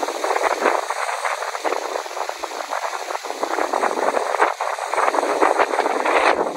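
Strong thunderstorm wind rushing through trees, a loud, dense hiss with a rapid crackle throughout.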